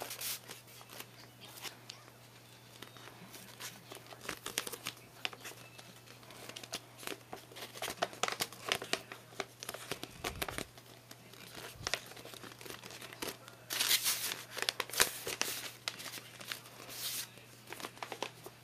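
Paper tube and tape being handled: irregular crinkling, crackling and rustling as the rolled paper is turned and strips of tape are torn and pressed onto it, loudest a little past the middle.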